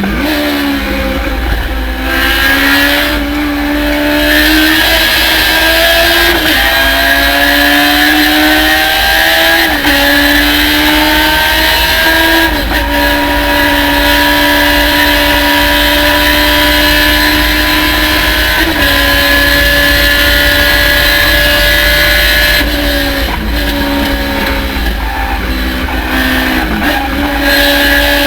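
Race car engine at full throttle, the revs climbing and dropping back with each of several upshifts, then holding one steady high note for about ten seconds. Near the end the revs fall with several quick dips as it downshifts.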